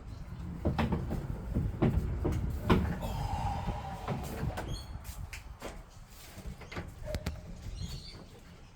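Scattered knocks and clicks of parts and panels being handled during work on a washing machine, busiest in the first few seconds, with a short squeak about three seconds in.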